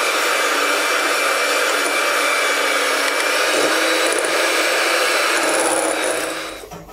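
Electric hand mixer running steadily, its beaters whipping chocolate whipped cream in a glass bowl. The motor noise dies away near the end as the mixer stops.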